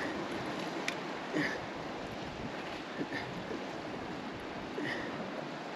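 Steady wash of sea surf and wind, with a few faint clicks and knocks from climbing hardware (rope ascender and karabiners) as a climber hauls himself up a fixed rope.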